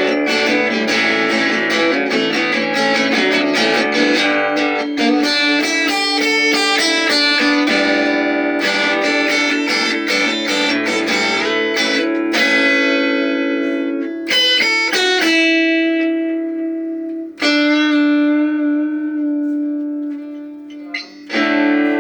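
Plucked guitar music with no voice: quick picked notes ringing over a steady held note. After about twelve seconds the notes thin out into slower, longer-ringing ones, with a brief break near the end.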